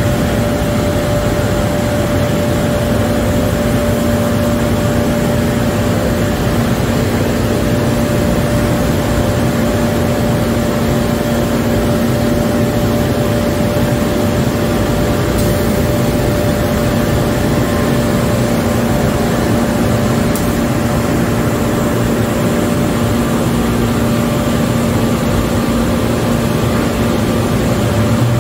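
Automatic car wash tunnel equipment running steadily: a constant mechanical hum with two steady tones under an even rush of noise.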